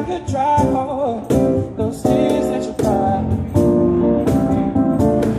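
Live band music: a stage keyboard playing chords over a strummed guitar on a steady beat, with a singer's wavering held phrase about half a second in.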